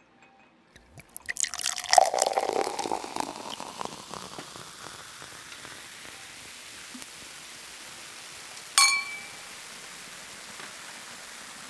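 Beer poured from a glass bottle into a glass, gurgling and foaming for a few seconds, then a steady fizz. Later a metal spoon strikes the glass once with a short ringing clink.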